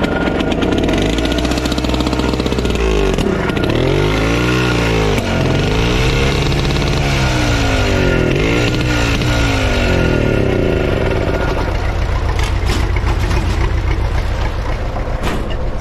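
Two-stroke petrol pony engine (PD-10) of an MTZ-80 tractor starting suddenly on a rope pull and then running loudly. Its speed rises and falls again and again.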